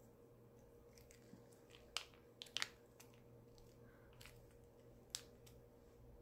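A cat licking and chewing a lickable Churu paste treat from a hand: soft wet clicks and smacks, with a few sharper clicks about two seconds in and again near five seconds.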